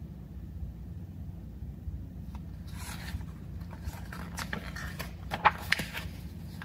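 Pages of a hardcover picture book being handled and turned: paper rustling with a few sharp flicks and taps, starting about two and a half seconds in. A low steady hum underneath.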